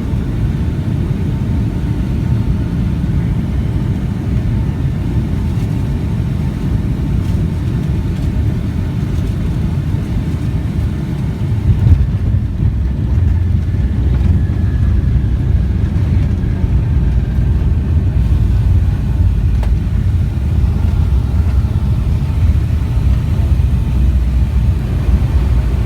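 Cabin noise of a Boeing 757 landing: a steady rumble of engines and airflow, then about twelve seconds in a sudden jolt and a heavier rumble as the wheels touch down and the jet rolls out, with a faint falling whine.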